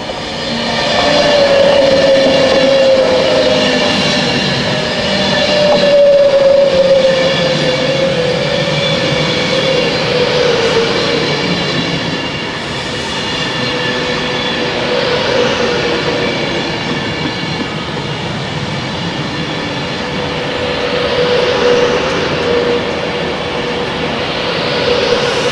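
Avanti West Coast Class 390 Pendolino electric express passing at speed, its wheels and bodies rushing by with a steady whine from the traction equipment that drops slightly in pitch in the first few seconds.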